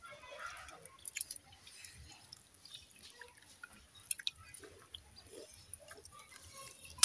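Eating pakhala (watered rice) by hand: fingers squishing and mixing wet rice in a steel bowl, with scattered small clicks and chewing as a handful is taken to the mouth.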